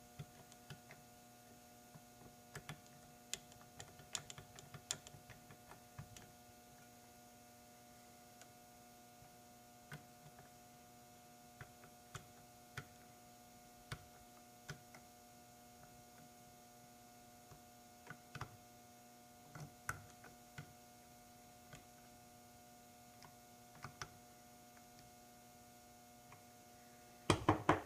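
Steady electrical hum under scattered light clicks and taps of small tools and metal parts being handled, as screws are driven into the scooter's Delrin propeller hub. A quick run of louder clicks comes just before the end.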